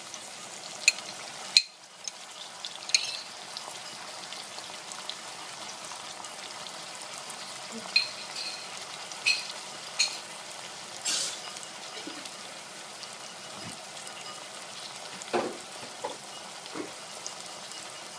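Sliced red onion, red capsicum and capers sizzling steadily in hot oil in a stainless steel saucepan. Sharp clicks and taps come now and then, a dozen or so spread through.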